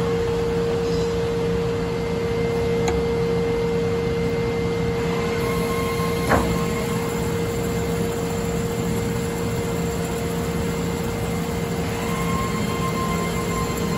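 Horizontal metal-cutting band saw running with coolant flowing, giving a steady hum and whine, with a sharp click about six seconds in. A higher tone comes in near the end.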